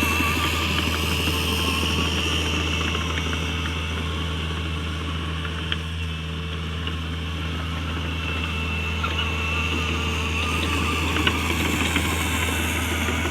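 Mini excavator's diesel engine running steadily, with a few scattered sharp clicks and knocks.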